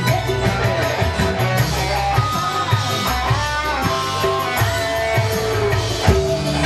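Live band playing an instrumental passage with no singing: a guitar melody that slides in pitch, over hand drums and bass.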